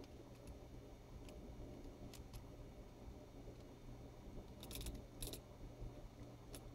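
Faint small metallic clicks from a 1958 Gillette Fatboy adjustable double-edge safety razor as its twist-open doors and adjustment dial are worked by hand. A few scattered clicks, with a quick cluster of louder ones about two-thirds of the way in.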